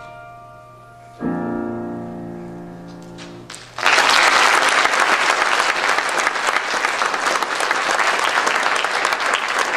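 A piano ends a song with a final chord that is held and slowly fades. About four seconds in, an audience breaks into applause and keeps clapping.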